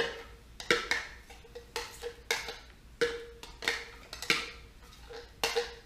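Spoon tapping and scraping against a small glass cup to get out the last of a thick flaxseed egg, about a dozen sharp clinks at an uneven pace, each ringing briefly.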